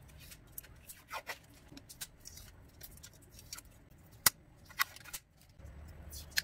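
Scattered clicks and clacks of small objects being handled and set down, a few short knocks at uneven spacing, the sharpest and loudest about four seconds in.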